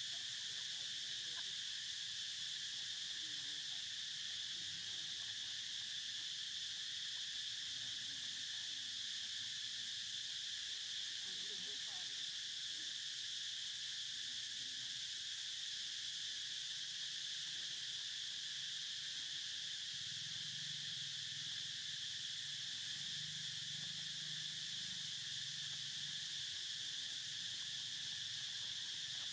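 A steady insect chorus: one continuous high drone that holds the same pitch and level throughout, with faint low rustles under it.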